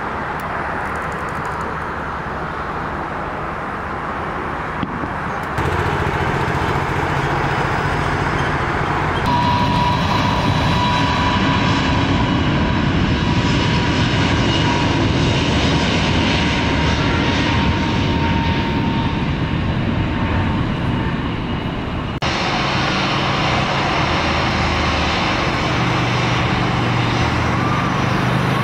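Jet airliner engines running at an airport, heard across several abrupt cuts between clips. Through the middle stretch a steady high engine whine sits over a low rumble.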